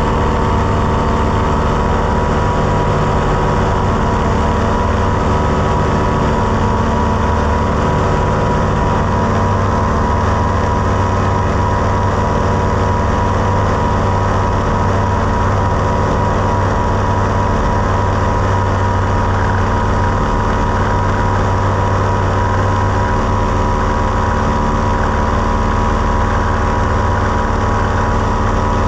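Tandem paramotor trike's engine and propeller running steadily at a constant pitch.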